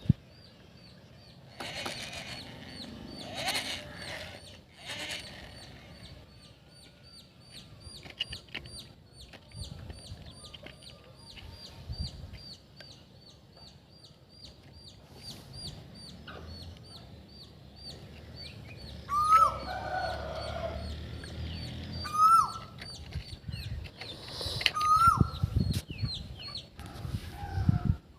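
Birds calling: a short high chirp repeats about three times a second. From about two-thirds of the way in, a louder hooked call comes every few seconds.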